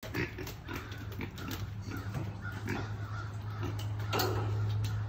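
A pig grunting in short, repeated grunts, with scattered sharp knocks and a steady low hum underneath.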